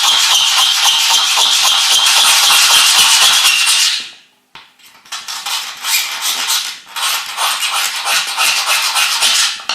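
A hand file rasping in rapid strokes across a metal door strike plate, with a high ringing tone from the plate through the first four seconds. The filing stops for about a second, then resumes in shorter bursts. The opening in the strike plate is being filed out so the door latch can catch in it.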